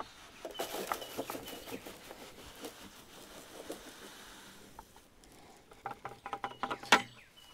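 Dry pig feed, grower pellets mixed with soybean meal, pouring from a plastic bucket into a feeder as a rush with many small ticks. Near the end the last of it is shaken out in short clatters, with one sharp knock.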